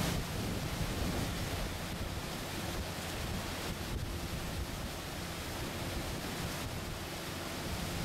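Wind buffeting the microphone over rushing water, with a low steady boat engine hum underneath.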